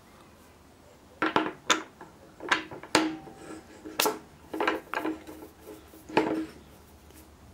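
The steel motor rotor of a vintage Frigidaire rotary fridge compressor being fitted onto the pump shaft and turned by hand, clinking against the metal pump body about eight times, each clink ringing briefly.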